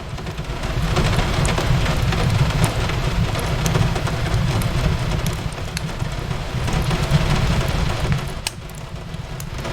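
Steady rain with fireplace crackling: scattered sharp crackles over a continuous rain hiss and a low rumble. It eases briefly near the end.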